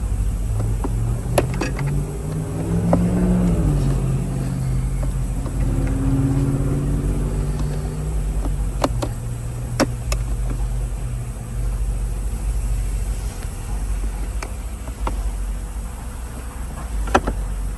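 A steady low engine rumble with a pitched tone that rises and falls about three seconds in, then holds steady for several seconds. A few sharp clicks and clanks are scattered through it.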